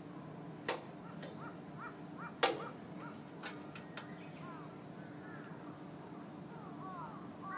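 Birds calling in short arched notes, with several sharp clicks or knocks in between, the loudest about two and a half seconds in, over a faint steady low hum.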